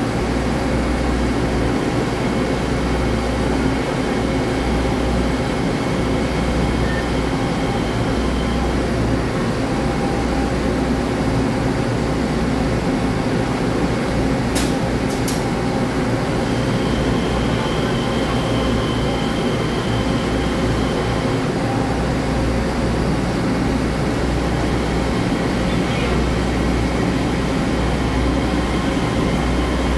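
Twelve-car EMU3000 electric express train pulling out of the platform, its motors and wheels running steadily on the rails as the cars pass close by. Two sharp clicks come in quick succession about halfway through.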